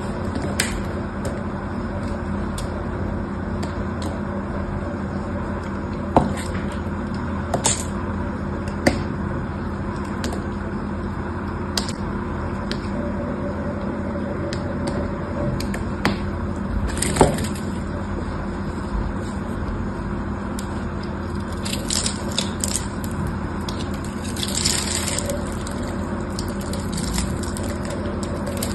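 A small blade carving a bar of soap: scraping cuts with sharp cracks and snaps as slices break away, and a denser crackle of small soap cubes crumbling off about three-quarters of the way through. A steady low hum runs underneath.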